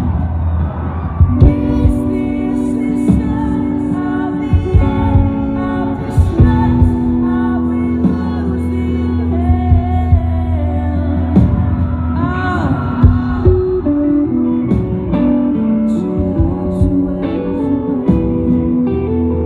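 Live rock band playing: held guitar chords over a steady low bass. A voice sings wavering, bending notes about ten to thirteen seconds in.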